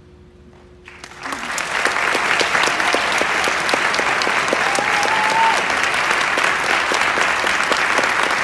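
The concert band's final chord dies away in the hall, then audience applause breaks out about a second in and carries on steadily. One short rising call rises over the clapping about five seconds in.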